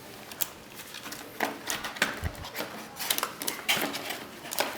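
Small plastic parts and packaging being handled: scattered irregular clicks and rustles, with a dull thump a little over two seconds in.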